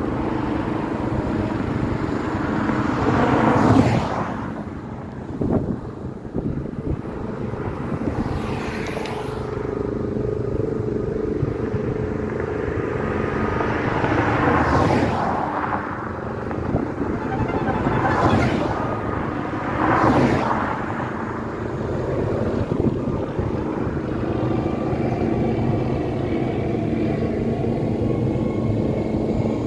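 Race-convoy vehicles, cars and motorbikes, passing one after another along the road. Each makes a rising and falling swoosh that lasts a second or two, about five in all, over a steady low engine drone.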